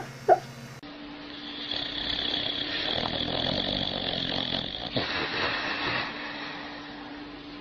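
A short dog bark right at the start, then a sleeping dog snoring: a raspy sound that swells and fades over about five seconds.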